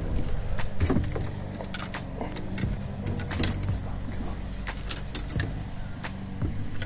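A landing net holding a caught bass is swung aboard and set down on a boat deck, making a run of irregular clinks, knocks and rattles from the net, the fish and the lure in it.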